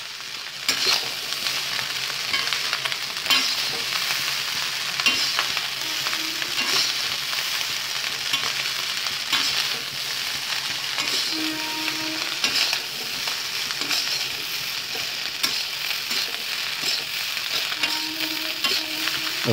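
Chicken fried rice sizzling in a black wok on high flame while a perforated metal spatula stirs and tosses it fast, scraping against the pan in quick, irregular strokes over a steady hiss.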